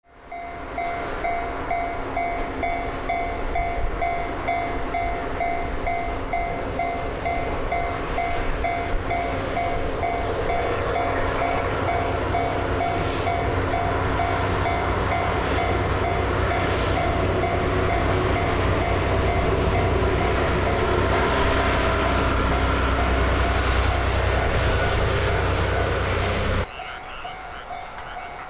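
Diesel-locomotive-hauled train running past, a steady rumble of engines and wheels that fades in at the start, grows heavier low down over the last several seconds and cuts off abruptly near the end. A pulsing frog chorus runs underneath.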